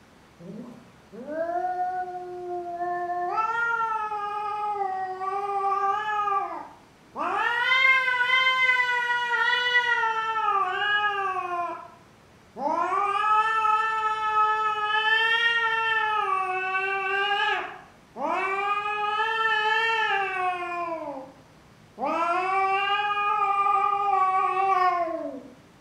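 Domestic tabby cat yowling in five long, drawn-out wails with short breaks between them, each rising at the start, holding a wavering pitch and dropping away at the end. It is a frightened, threatening yowl at its own reflection in a mirror, which it takes for another cat.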